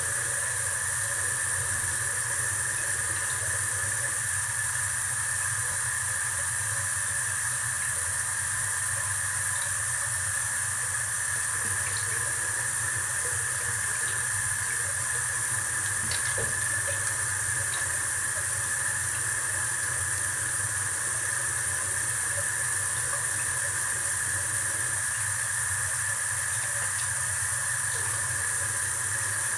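A steady, even hiss with a low hum beneath it, unchanging throughout, with a few faint ticks around the middle.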